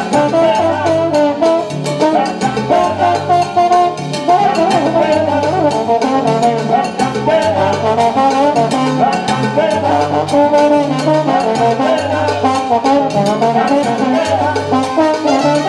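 Live salsa band playing, with a trombone prominent over a repeating bass line and steady percussion.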